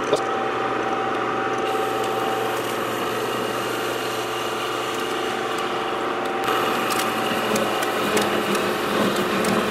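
Small metal lathe running under power with a steady whine while its cutting tool turns down an aluminium bar.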